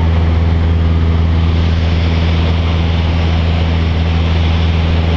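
Cessna 172's piston engine and propeller droning steadily in flight, heard inside the cabin, with a low, constant hum under a hiss of airflow.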